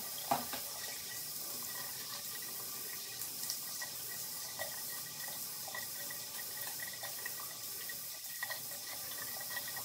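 Bathroom sink tap running steadily into the basin, with a short knock just after the start and a few light splashes while the face is rinsed.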